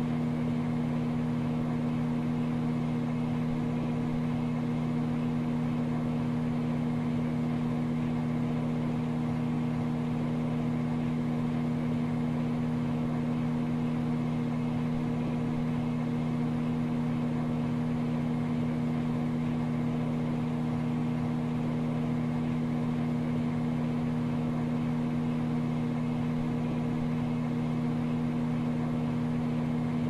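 Microwave oven running: a steady, unchanging hum.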